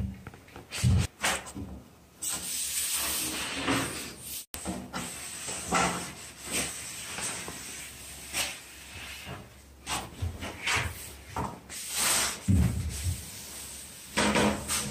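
Woodworking handling sounds: wooden panels and boards knocking, thudding and scraping. A hissing, rubbing sound runs for about two seconds early on, and a heavier thump comes near the end.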